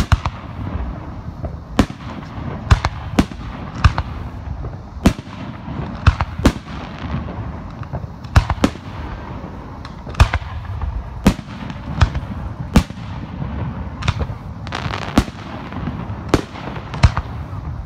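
Fireworks display heard from close to the firing site: aerial shells launching and bursting overhead in sharp, irregular bangs about one a second, with a low rumble between them.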